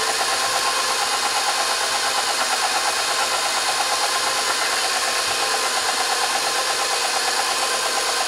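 KitchenAid stand mixer running with its flat paddle beater turning through thick cookie dough: a steady motor whir with a fast, regular pulsing.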